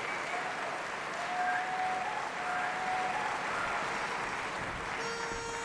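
Audience applauding, with a few short whistles over the clapping. Near the end a single steady, reedy note starts: a barbershop pitch pipe sounding the quartet's starting note.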